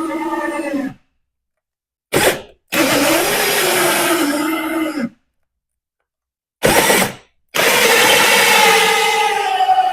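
Power drill spinning a 1-inch hole saw through layered 3/4-inch wood. It comes in several runs of a few seconds each, whose pitch sags and recovers as the saw bites, separated by abrupt dead silences.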